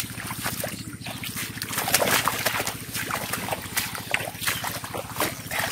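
Splashing and sloshing in shallow muddy water as feet and hands move through it, in many short irregular strokes. A steady low hum runs underneath.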